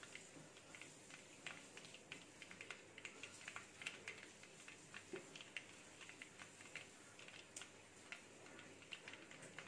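Mustard seeds sizzling in hot sesame oil in a clay pot, giving faint, irregular little pops and crackles, several a second.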